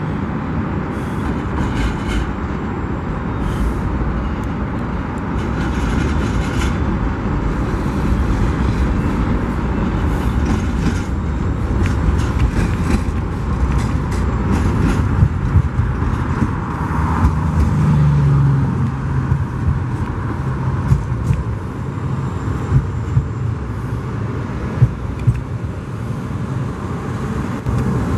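Slow-rolling freight train of highway trailers on flatcars passing: a steady low rumble with irregular clanks and clicks, and a low drone that swells briefly past the middle.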